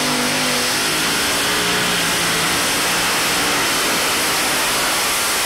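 Multi-engine modified pulling tractor running flat out while dragging the weight sled. A loud, dense engine noise: its pitch wavers over the first couple of seconds, then it settles into a steady, noisy blare.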